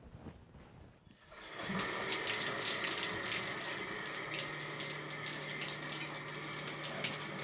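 Shower running, water spraying steadily from a shower head onto a tiled floor, starting about a second in.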